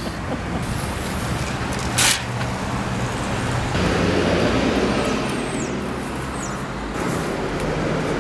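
Street traffic noise: a steady rumble of passing vehicles, swelling a little about four seconds in, with a brief hiss about two seconds in.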